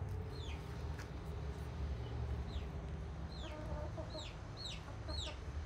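Domestic hens clucking. In the second half comes a run of short, high chirps that fall in pitch, about two a second.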